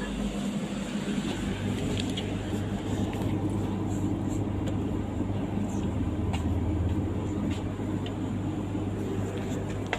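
Steady low hum and rumble of a running vehicle, with a few faint clicks.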